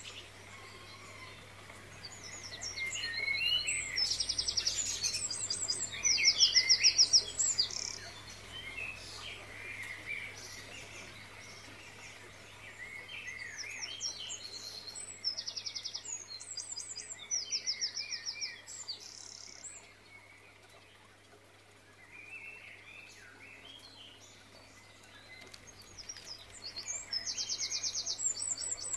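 Birds singing: clusters of fast, high trills mixed with short chirps, with a quieter stretch a little past two-thirds through.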